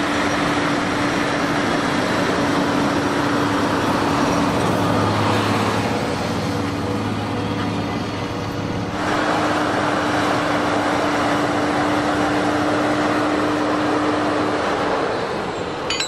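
Fendt 939 tractor engine running steadily under heavy load while pulling a deep plough through heavy clay. The sound shifts abruptly about nine seconds in.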